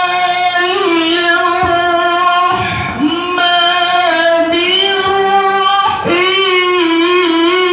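Male Quran reciter (qari) chanting in a high, sustained melodic voice through a microphone, holding long ornamented notes. Short breaks for breath come about three and six seconds in.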